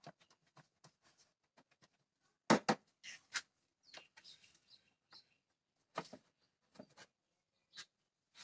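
Scattered plastic clicks and knocks from hands handling the air filter housing, engine cover and intake hose under the bonnet, the loudest a double knock about two and a half seconds in.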